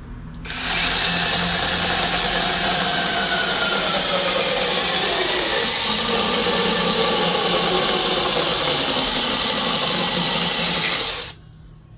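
Bei & Hong cordless 6-inch mini chainsaw with a brushless motor starting up and its chain cutting through a log. The motor's pitch drops as the chain bites into the wood, then holds steady. It cuts off suddenly near the end when the trigger is released.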